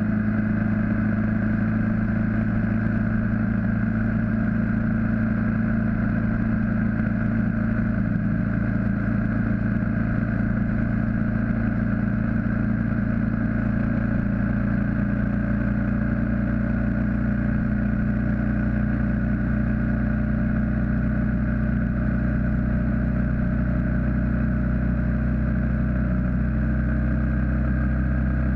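BMW G650GS single-cylinder motorcycle engine running at a steady cruising speed on the open road, its note dipping slightly near the end.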